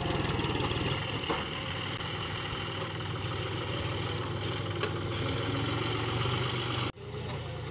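John Deere 5050D tractor's three-cylinder diesel engine running steadily as the tractor pushes its front loader along a heap of straw, with a few faint clicks. The sound cuts out for an instant near the end, then the engine runs on evenly.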